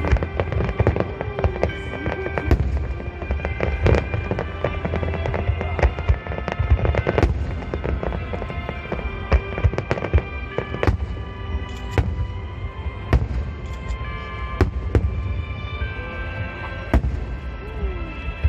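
Fireworks shells bursting overhead, dozens of sharp bangs in quick, irregular succession over a low rumble, with music playing alongside.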